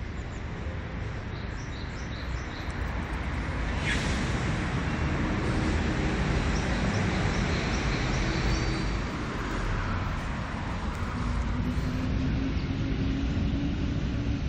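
Steady road-traffic noise that grows louder about four seconds in, with the hum of a passing vehicle. Faint high chirps of small birds come in short runs.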